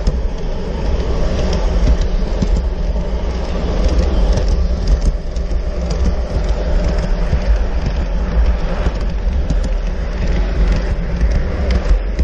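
G-scale model train rolling along its track, heard from a camera riding on one of the coaches: a steady low rumble of wheels on rail with frequent small clicks.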